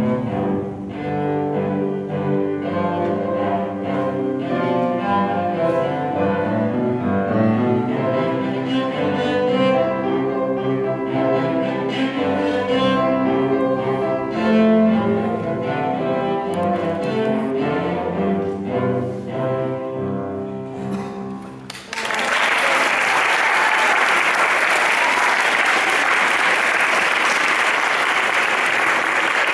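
Cello played with bow, accompanied by an upright piano, until the piece ends about three-quarters of the way through. Then the audience applauds steadily.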